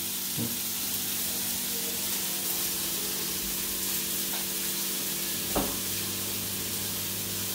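Beef steak sizzling steadily in a non-stick frying pan over a gas burner, with a steady low hum underneath. Two light knocks, one about half a second in and another a little past the middle.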